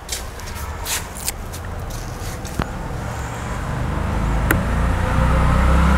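Low rumble of a motor vehicle that grows louder over the last few seconds, with a couple of light clicks.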